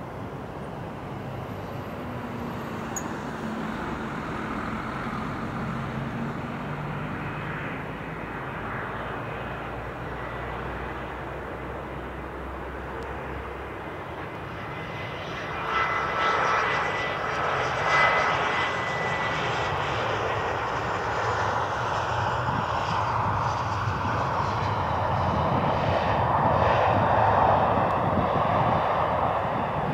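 KLM Cityhopper Fokker 70 jet airliner landing, its rear-mounted Rolls-Royce Tay turbofans a steady distant rush at first. The sound grows louder about halfway through as the jet passes close, with a high engine whine. Near the end a broad rush swells as the aircraft rolls out on the wet runway.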